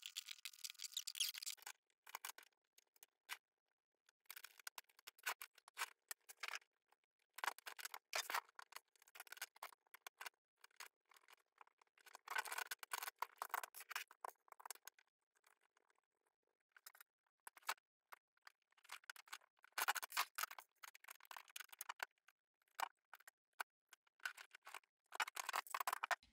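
Faint, scattered clicks and rustles of hands handling and fitting together plastic tank track links with metal pins, with the crinkle of their plastic bags.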